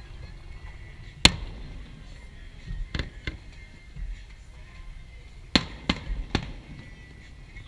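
Aerial fireworks shells bursting: six sharp bangs in small clusters, the first the loudest.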